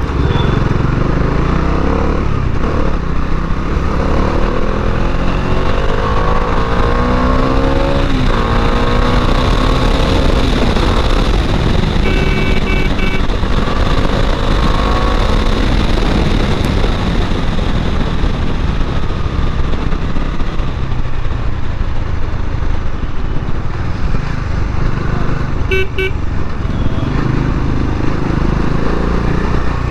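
Bajaj Dominar 400's single-cylinder engine accelerating through the gears while riding, its pitch climbing several times over low wind rumble. A vehicle horn toots briefly twice, about 12 and 26 seconds in.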